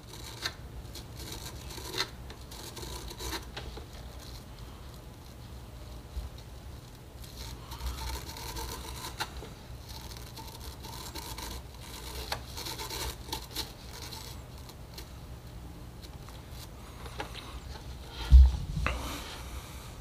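Stiff bristles of a Hoover WindTunnel High Capacity vacuum's spiral brush roll rubbing and scratching under a hand working over and turning the roll, in small irregular scrapes and ticks. A single dull thump comes near the end.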